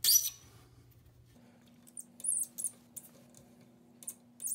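Plastic coupling nut on a toilet's water supply line being unscrewed by hand, giving a few short, high squeaks and clicks from the plastic threads, in a cluster about two seconds in and again near the end.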